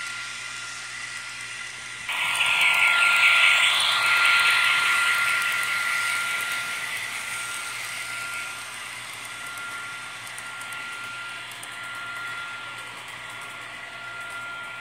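HO scale model train rolling past close by: the hissing rattle of boxcar wheels on the track starts abruptly about two seconds in and slowly fades as the cars move on, over a thin steady whine.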